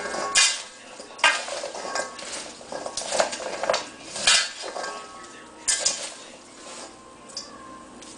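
Kitchen clatter: dishes and metal utensils being handled, about a dozen sharp clinks and knocks at irregular intervals, several with a brief metallic ring.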